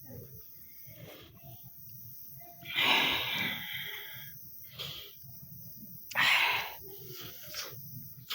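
A person sneezing twice, about three seconds in and again about six seconds in, the first a longer breathy burst that fades, the second short and sharp, with faint breathing and rustling between. The sneezes are brought on by tickling the nose.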